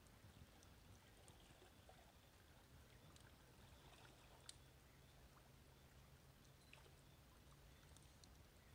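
Near silence: a small wood campfire crackling faintly, with scattered soft ticks and one sharper pop about halfway through.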